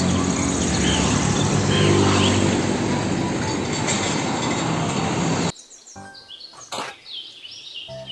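Diesel engine of a car-carrier truck running as it drives along a road, with steady traffic noise and birds chirping. About five and a half seconds in it cuts off abruptly, leaving faint bird chirps and soft music.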